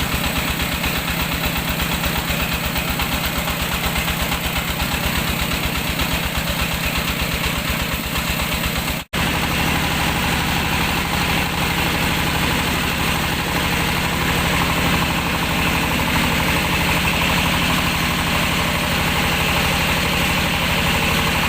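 Mobile rice milling machine running: its engine keeps a fast, even beat under a steady hiss from the mill. The sound cuts out for an instant about nine seconds in, and the beat is smoother after that.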